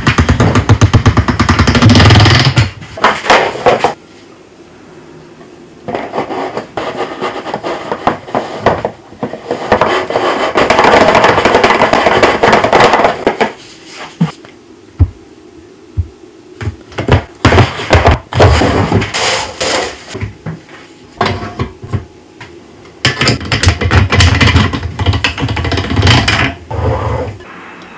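Hand-cranked noodle-rolling machines pressing ramen dough into sheets. Stretches of rapid, even clattering from the turning gears and rollers alternate with separate knocks and taps as the sheets are handled.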